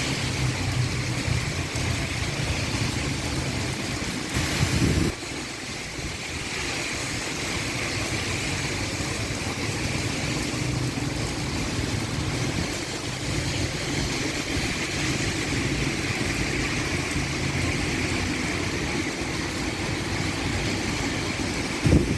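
Heavy rain pouring steadily onto a roof, with runoff streaming from the eaves. A brief louder low rumble comes about four and a half seconds in and again near the end.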